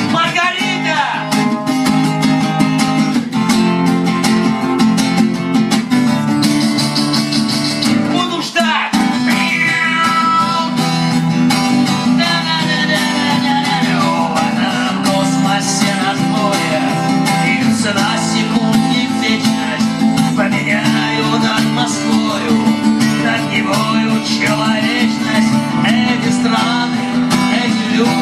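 Live song: an acoustic guitar strummed steadily, with a man's voice singing over it.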